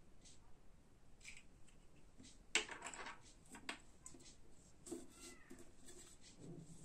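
Faint handling noise: light clicks and taps as metal alligator clips and graphite rods are picked up and set down on a laminated sheet, the sharpest click about two and a half seconds in. A few short faint squeaks are mixed in.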